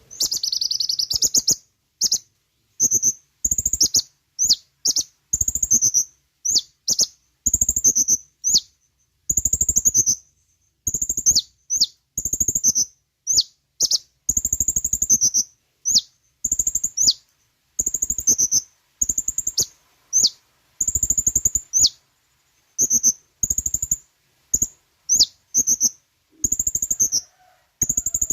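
Kolibri ninja, a small sunbird, singing a fast, loud run of short high chirps and quick downward-sweeping notes, phrase after phrase with brief pauses between.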